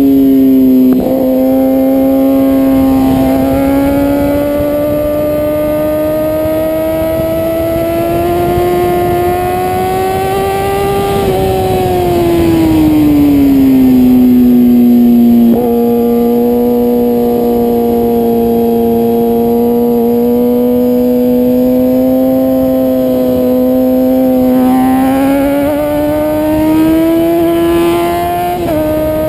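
Sport motorcycle engine running hard at high revs under a steady rush of wind. The note climbs slowly, falls away about halfway through as the bike slows, steps down with a brief click at a gear change, holds, then climbs again near the end.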